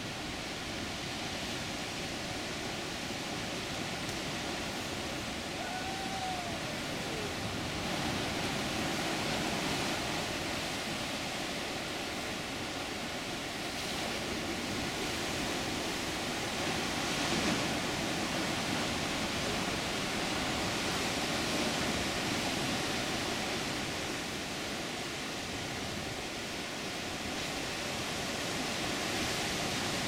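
Ocean surf breaking against jagged black lava rock: a steady rushing wash that swells and ebbs as each set of waves comes in.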